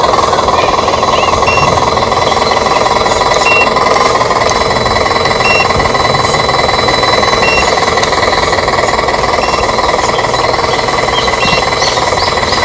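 RC model truck running with a steady, fast mechanical rattle from its motor and gears. Short high beeps repeat about every two seconds.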